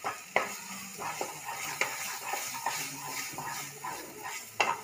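A spatula stirring and scraping a thick ridge gourd and grated coconut mixture in a non-stick kadai, giving irregular scrapes and light knocks against the pan, with a few sharper knocks near the start and near the end.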